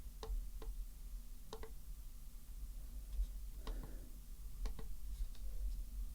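Button on a portable electric tyre inflator being pressed, giving a few short plastic clicks, several in quick pairs, as its flashlight modes are switched.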